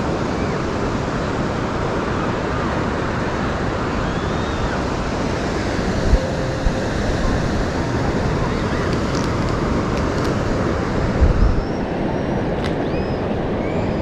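Steady rushing of surf and wind across the microphone on an open beach, with a couple of brief low buffets from gusts about six seconds in and again around eleven seconds.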